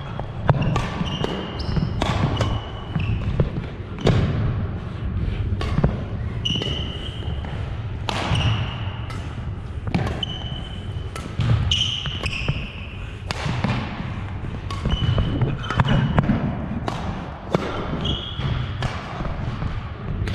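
Badminton rally on a hardwood gym floor: sharp racket strikes on the shuttlecock about once a second or so, sneakers squeaking on the floor, and the thud of footfalls.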